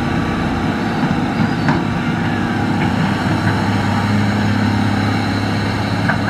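Hitachi excavator's diesel engine running steadily, with a few faint clicks.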